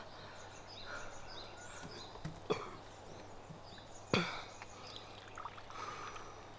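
Ceramic teaware being handled on a wooden table over a quiet room background: a light click, then a sharper knock of a cup about four seconds in, followed by water trickling from a teapot into a cup near the end.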